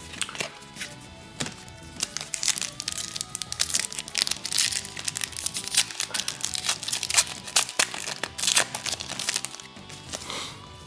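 A foil trading-card pack wrapper being torn open and crinkled by hand, with dense crackling from about two seconds in until near the end. Quiet background music runs underneath.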